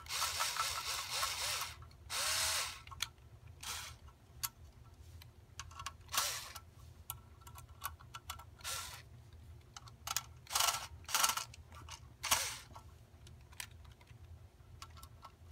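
Cordless power screwdriver driving small screws into a circuit board's sheet-metal mounting bracket: a longer run of motor whirring at the start, then several short bursts with clicks between them.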